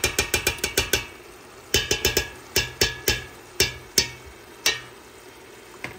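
Metal spoon clinking against the pot while stirring tomato paste into frying meat and onions: a quick run of taps in the first second and another around two seconds in, then single knocks spaced out until a little before the end.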